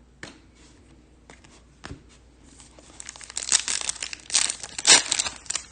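A few faint clicks, then from about three seconds in a trading-card pack's foil wrapper crinkling loudly as it is torn open.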